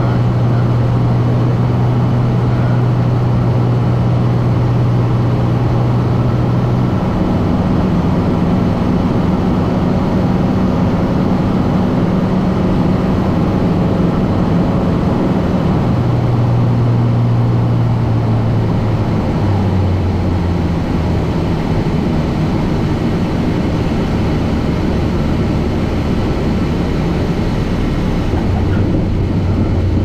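Light aircraft's propeller engine running, heard inside the cockpit over a steady rushing noise. The engine note shifts pitch a few times and settles lower in the second half as power is brought back for the landing.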